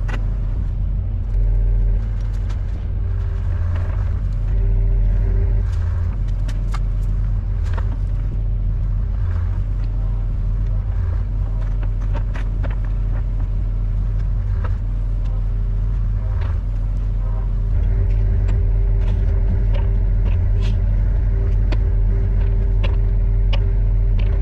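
Sany 60 excavator's diesel engine running steadily, with a steady hydraulic whine over the low rumble and scattered knocks and clicks.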